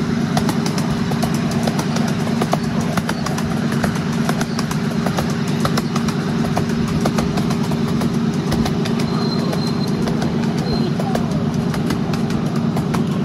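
Small engine of a ride-on miniature railway train running steadily, with irregular light clicking and rattling from the wheels on the narrow-gauge track.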